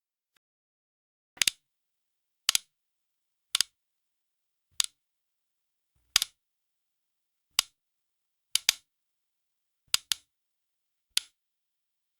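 'Like' button tap sound effects: a series of short, bright tap clicks, about one a second, several of them quick double taps, with silence between.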